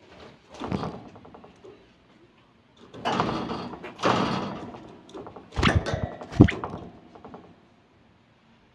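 Common bulbul fluttering and hopping about a wire cage: wingbeats with knocks and rattles from the perch and bars, in three bursts, the sharpest knock a little past six seconds in.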